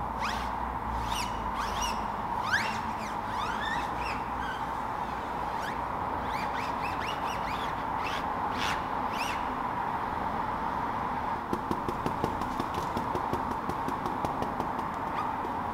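Applicator pad rubbing tyre dressing into a rubber tyre sidewall. It squeaks in short rising chirps through the first half, then gives a quicker run of scuffing strokes near the end, over a steady faint hum.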